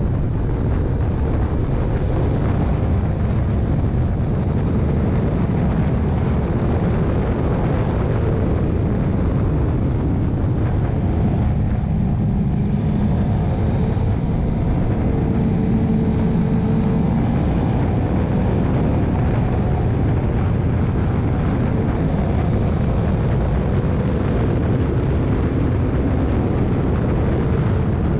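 Motorcycle on the move, heard from a camera mounted on the bike: a steady, loud rush of wind and road noise over the engine's drone. The engine pitch wavers a little around the middle.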